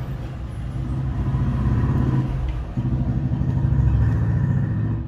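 A vehicle engine running, steady and low, louder through the middle with a short break about two and a half seconds in.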